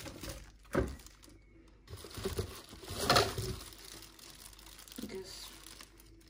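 Plastic packaging bags crinkling and rustling as wrapped hand-blender parts are handled, with a soft knock just under a second in and the loudest rustle about three seconds in.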